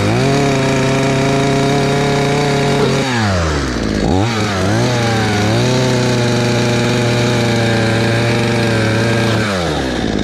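Fortec two-stroke petrol chainsaw revved to high speed and held for about three seconds, dropping back toward idle with a quick blip, then revved and held high again for about four seconds before easing back down near the end.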